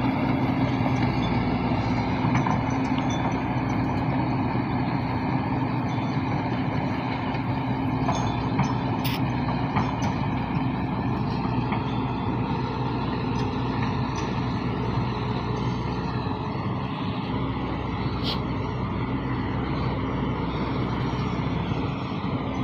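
Komatsu excavator's diesel engine running steadily as the machine works, with a couple of faint ticks about midway and again near the end.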